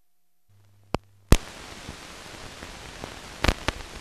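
Old film soundtrack noise: a low hum comes in, two sharp clicks follow about a second in, then a steady hiss with scattered crackles and pops, as on the tail of a newsreel print after the narration has ended.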